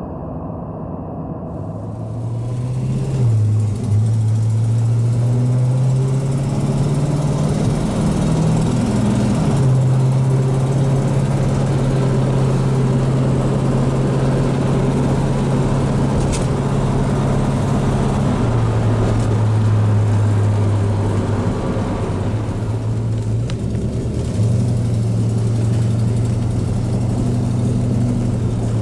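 1967 Dodge Coronet 500's 383 cubic-inch big-block V8 running as the car is driven. The engine note steps up and down several times with the throttle.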